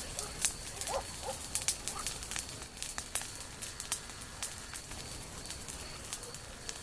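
Campfire of burning branches crackling, with many irregular sharp pops and snaps.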